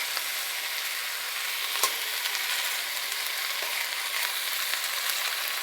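Shredded chicken and diced tomatoes sizzling in a pot over medium heat while being stirred, with one light knock about two seconds in.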